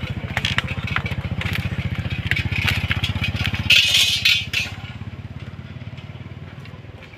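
A small engine running with a steady low throb, with irregular crackling clicks over it and a louder rasping rustle about four seconds in, after which the throb fades.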